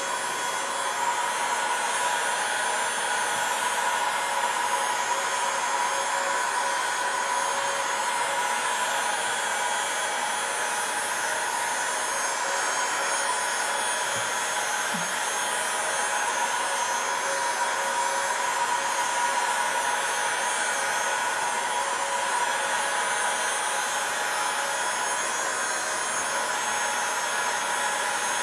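Heat gun blowing steadily: an even rush of hot air with a faint steady whine in it, warming the glass to soften the digitizer adhesive.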